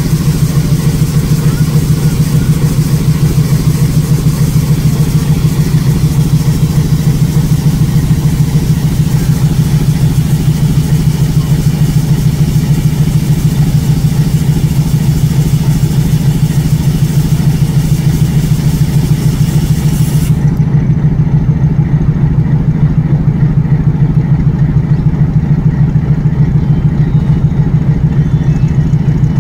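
Meter-gauge diesel locomotive idling close by: a steady, loud, low engine hum with a fast, even pulse.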